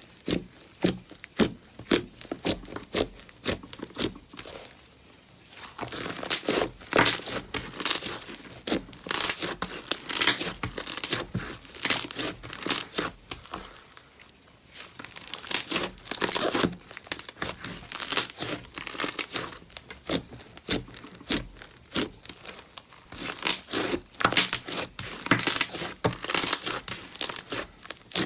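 Slime being squeezed and pressed, giving rapid crackling and popping that swells and eases every few seconds.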